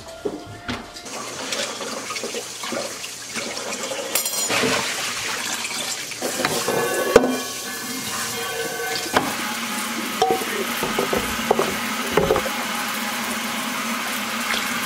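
Kitchen faucet running into a sink of soapy dishwater while a stainless steel pot is washed by hand, with knocks and clanks of the pot against the sink, the sharpest about seven seconds in.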